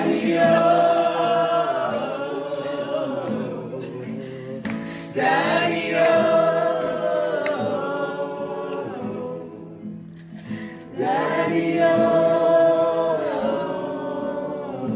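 A man singing to his strummed acoustic guitar, with other voices singing along. Three long phrases with held notes.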